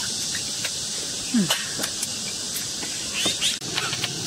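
Short, sharp sucking slurps, several in a row, as the meat of cooked sea snails is sucked out of the shells, over a steady high hiss of insects.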